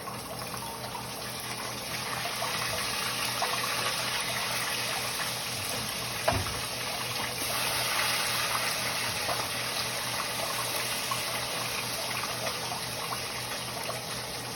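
Kitchen tap running steadily into a sink as raw chicken is washed under it, getting a little louder about two seconds in, with one brief knock about six seconds in.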